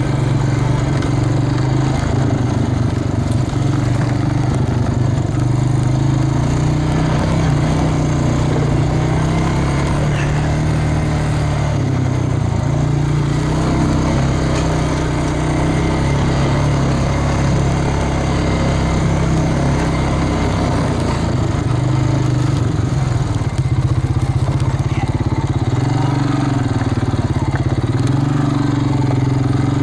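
An engine running at a steady, even pitch, a continuous low hum.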